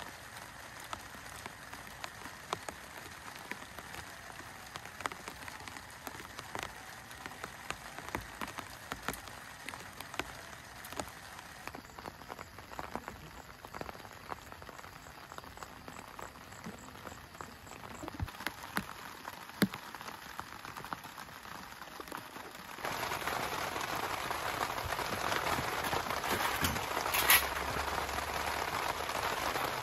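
Rain falling, a steady hiss with many single drops tapping on a surface. About two-thirds of the way through it suddenly becomes louder and fuller.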